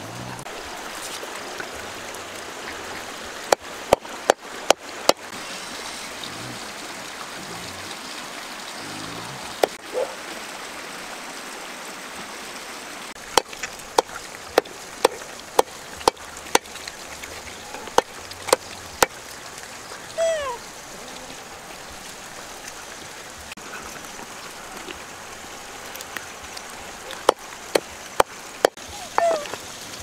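Steady rush of a nearby stream, with sharp knocks scattered through: a knife chopping meat on a wooden board. Near the end come two short squeals that fall in pitch.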